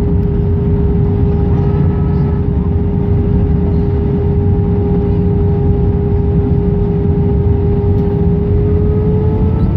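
Airbus A319's IAE V2500 turbofan engines and airflow heard inside the passenger cabin on approach: a steady roar with a droning tone that edges up in pitch near the end.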